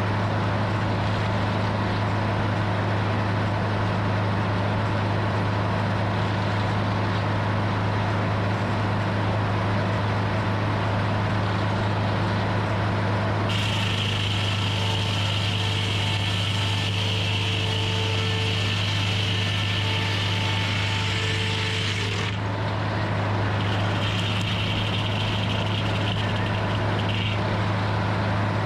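Hydraulic sawmill running steadily, its motor humming. About halfway through, the saw cuts through timber for roughly nine seconds with a high whine, and it cuts again more briefly near the end.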